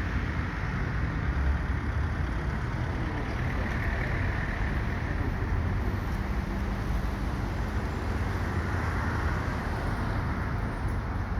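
Steady road traffic noise: a continuous hum of passing cars with no single event standing out.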